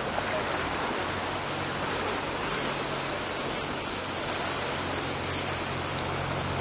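Steady rush of floodwater, with a faint low hum underneath.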